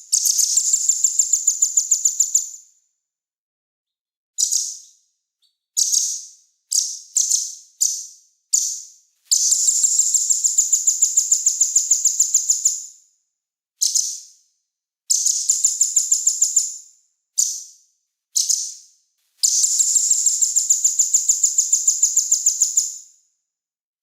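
Small songbird singing high-pitched: long rapid trilled runs of about five notes a second lasting several seconds, alternating with short single chirps, with dead-silent gaps between phrases.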